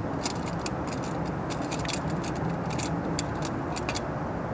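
Adjustable wrench working the brass nut on a pool light's stainless face-ring clamp: irregular small metallic clicks and scrapes. Under them runs a steady low hum of a vehicle.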